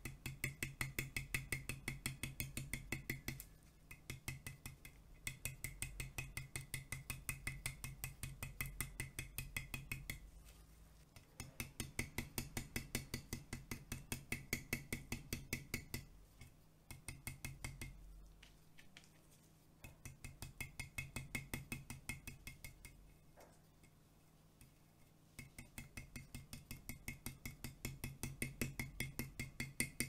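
Stencil brush pouncing paint through a plastic stencil onto a painted glass demijohn: quick dabbing taps, about four or five a second, in runs of a few seconds with short pauses between.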